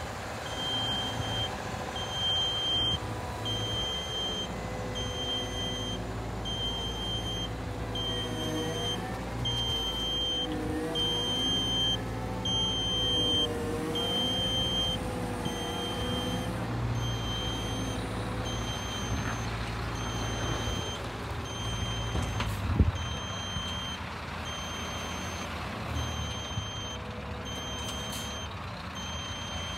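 Caterpillar M316F wheeled excavator's diesel engine running. Its warning alarm beeps about once a second, and the engine and hydraulic pitch wavers up and down for a while midway as the machine works. A single sharp knock comes late on.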